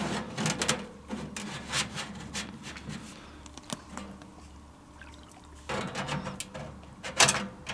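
Thin metal stovepipe sections of a portable camping stove being pushed together and seated on the chimney: scraping and light clinking of metal on metal, busiest near the end.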